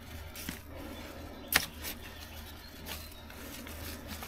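A small hand trowel digging through bedding of dirt, shredded newspaper and chopped lettuce in a plastic bucket: quiet scraping and rustling, with one sharp knock about a second and a half in.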